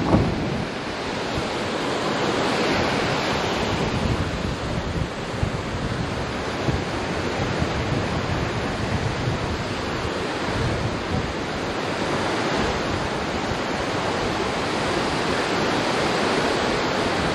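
Steady rushing noise of wind gusting on the microphone over turbulent water moving in a canal lock chamber as it empties.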